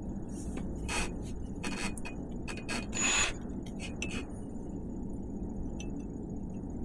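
Handling noise of tools against a bike frame: a few short clicks and scrapes, the loudest about three seconds in, over a steady low hum; no drill running.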